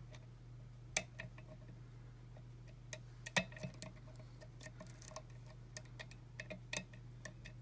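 Faint, irregular metallic clicks and ticks of a hook pick working the pins of a pin-tumbler lock under tension, the louder clicks about one, three and a half and seven seconds in. A steady low hum runs underneath.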